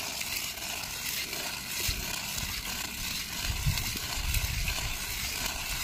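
A red clay brick being rubbed in circles against a concrete floor, giving a continuous gritty scraping. A few low rumbles come in about two and four seconds in.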